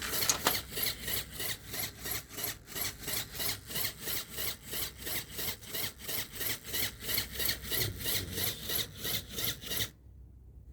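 Motor-driven LEGO Technic pneumatic compressor pumping in a steady rhythm of about three to four strokes a second, then cutting off suddenly near the end.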